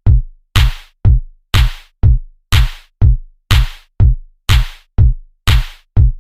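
Background electronic music down to a bare drum-machine beat: a deep kick with a sharp hiss on top, about two hits a second, evenly spaced.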